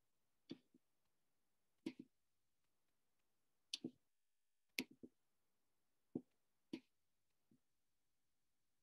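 Scattered clicks of a computer mouse, about a dozen, some in quick pairs, coming roughly a second apart with near silence between.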